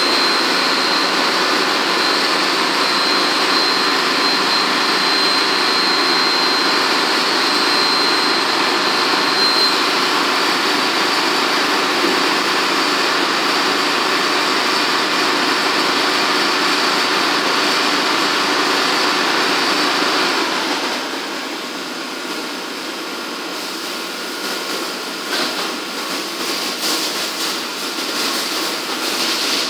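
Biglia B470 YMS Quattro CNC lathe running a machining cycle: a steady, loud whir with a thin high tone over the first third. About two-thirds of the way in it drops to a quieter, more uneven run.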